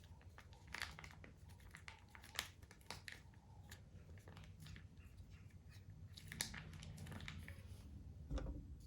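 Faint handling noises: scattered crinkling and light clicks from small items, such as plastic packaging, being handled close by, over a low steady hum.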